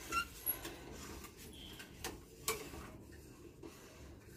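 A spatula stirring thick mango gurma in a stainless-steel pressure-cooker pot, with a few light clicks of the spatula against the pot.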